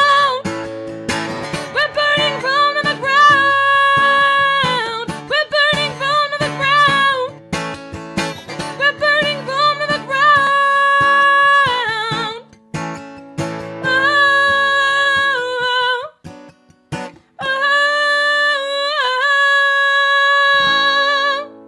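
A woman singing with a strummed acoustic guitar: long held sung notes over strummed chords, the song ending just before the end with a last held note cutting off.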